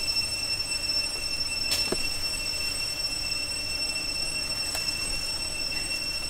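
Steady high-pitched drone of insects, a single unbroken tone with overtones, with a few faint clicks of utensils being handled.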